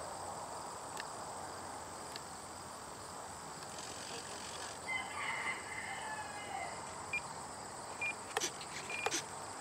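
Outdoor field ambience: a steady high insect trill, with a few faint short chirps from about five seconds in and a few light clicks near the end.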